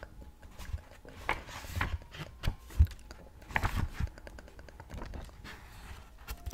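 Close-up ASMR handling sounds: irregular sharp taps and clicks with a few short rustles of objects being handled near the microphone, the loudest tap about three seconds in.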